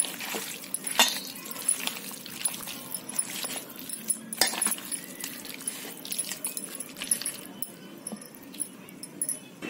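Raw chicken pieces being mixed by hand into a yogurt-and-spice marinade in a stainless-steel bowl: irregular squishing and clicks of meat and hand against the bowl, dying down near the end.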